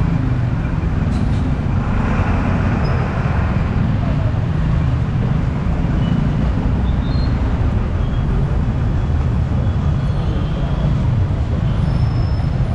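Steady city street traffic: motorcycles, cars and buses running along a rain-wet road, with one louder vehicle passing about two seconds in.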